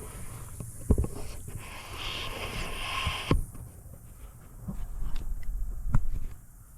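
Tools clicking and knocking on a Yanmar 1500 tractor's diesel injector line fittings as they are worked loose for bleeding, over a low rumble of handling noise. A short hiss about two seconds in.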